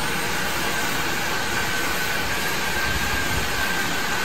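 Oxy-propylene cutting torch burning its preheat flame: a steady hissing rush with a faint high whistle running through it.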